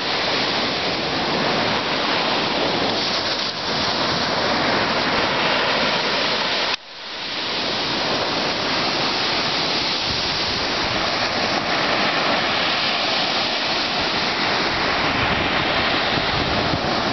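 Small surf breaking and washing up on a sandy beach: a steady rush of waves and foam. About seven seconds in it cuts out suddenly for a moment and swells back.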